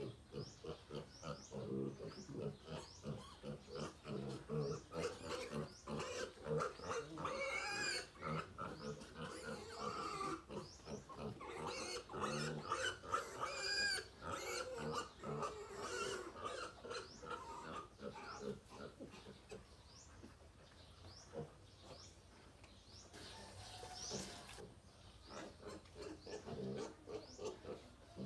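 Piglets grunting as they eat banana, with quick short sounds throughout. Louder, higher squeals come in between about 8 and 14 seconds in and again around 24 seconds.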